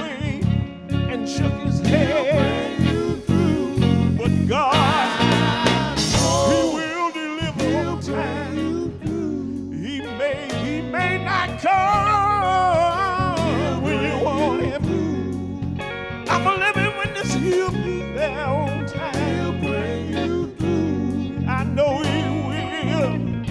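Gospel quartet performing live: a male lead voice singing with a wide vibrato over electric guitar, bass guitar and a steady drum beat.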